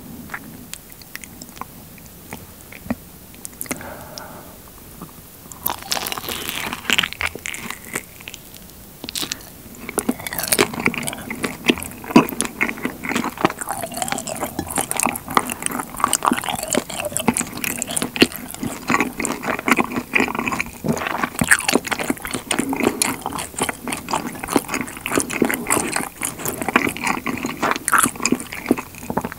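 Close-miked biting and chewing of honeycomb on a warm kirimochi rice cake: crackly clicks from the wax comb and sticky, chewy mouth sounds. It starts about six seconds in and turns into a dense, continuous run of chewing from about ten seconds in.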